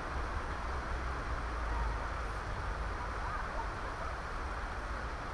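Steady rush of river water running over a shallow, stony riffle, with a fluttering low wind rumble on the microphone.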